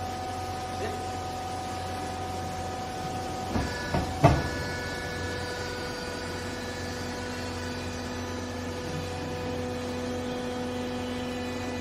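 Vertical hydraulic clothes baler running: its electric motor and hydraulic pump hum steadily, with a few sharp clunks about four seconds in. The pump's tone shifts at that point and again later as the press plate comes down and compacts the clothes.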